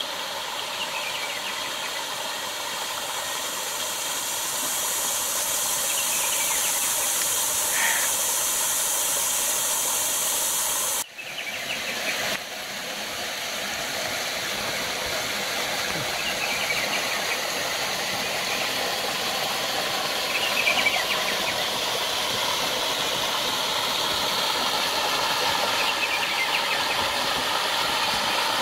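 Water of a small creek cascade pouring into a pool: a steady rushing hiss that drops out briefly about eleven seconds in.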